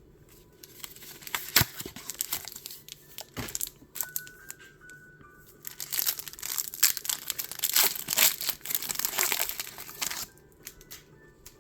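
Pokémon booster pack's foil wrapper crinkling and being torn open, in rustling bursts that are busiest in the second half and stop near the end, with faint background music underneath.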